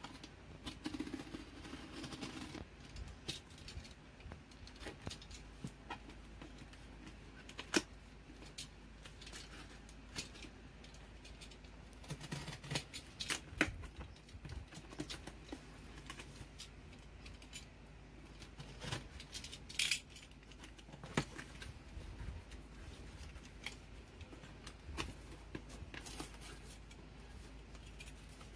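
Utility knife cutting packing tape on a cardboard box, then the cardboard flaps pulled open and handled: scattered scrapes, clicks and taps, with a longer scraping cut about a second in.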